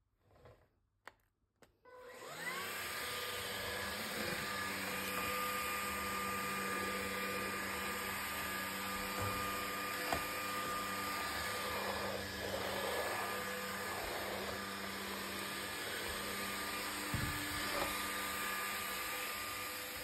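Levoit LVAC-200 cordless stick vacuum switched on about two seconds in. Its motor spins up with a rising whine and then runs steadily, the sound changing around twelve seconds in.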